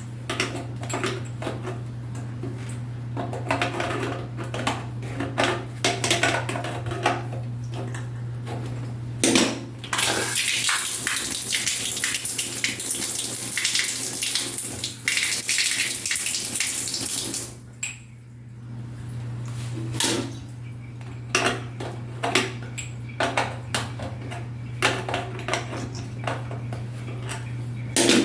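Small plastic washing-machine parts being handled and scrubbed, with repeated clicks, knocks and clatter, and water running from a tap in a steady rush for about seven seconds midway before cutting off. A steady low hum runs underneath.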